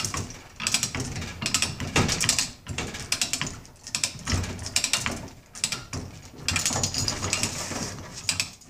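Yale 3/4-ton ratchet chain hoist being worked to lower a load: repeated bursts of ratchet clicking and chain rattling, about one a second, dying away near the end.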